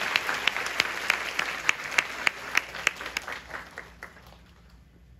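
Concert hall audience applauding, with one close pair of hands clapping steadily about three times a second; the applause dies away about four seconds in.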